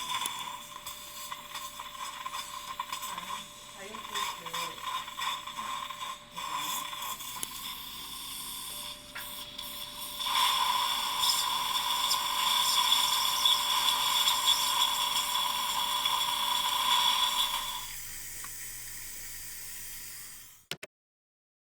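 Implant surgical motor and handpiece drilling the osteotomy through a surgical guide: a steady high whine with scattered clicks and scraping in the first half, growing louder about halfway through and stopping a few seconds before the end.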